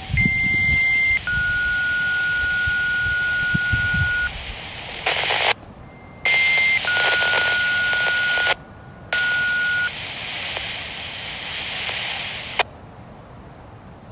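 Handheld radio scanner receiving a two-tone page over a hissy radio channel: a short high steady tone followed by a longer lower one, the pair sounding twice. The transmission ends with a click near the end.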